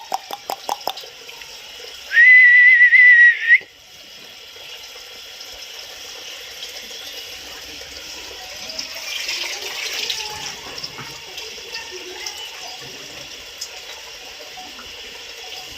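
A few sharp clicks, then one loud, shrill whistle lasting about a second and a half, its pitch wavering slightly. A steady rushing noise like running water continues underneath.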